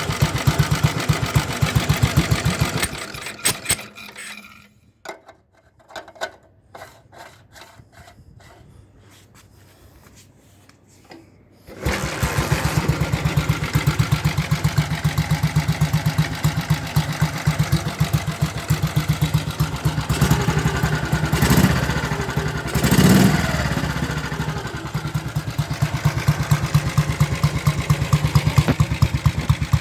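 A 1956 Ariel Colt 200's single-cylinder engine running with a rapid, even beat. It drops out about four seconds in, leaving only a few clicks and knocks. It is running again from about twelve seconds in, with two brief louder swells near twenty-one and twenty-three seconds.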